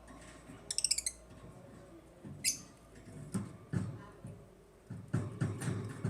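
African lovebirds chirping: a quick run of rapid high chirps about a second in and one sharp chirp a little later, followed by a series of low knocks and rustling.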